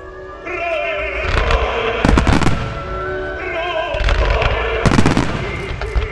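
Fireworks display firing: repeated launches and bursts crackling throughout, with two heavy booms about two seconds and five seconds in, over music playing at the same time.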